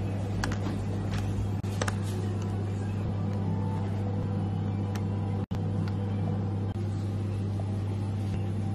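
Steady low machine hum with a faint even hiss, with a few faint light clicks in the first couple of seconds.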